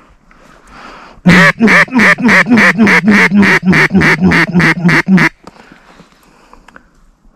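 A duck call blown in a fast, even run of about sixteen loud quacks over some four seconds, starting about a second in and stopping abruptly.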